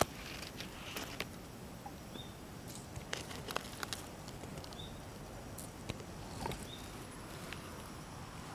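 Quiet outdoor garden ambience with scattered small clicks and rustles, and three faint short high chirps spaced about a second and a half apart.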